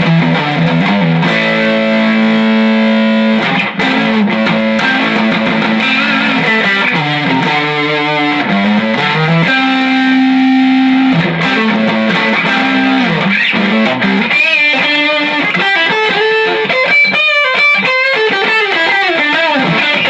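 Electric guitar with a Tim Shaw PAF humbucker on the neck pickup, played through an amp's overdrive channel. Sustained chords and notes come first, then single-note lead lines with bends and vibrato in the last several seconds.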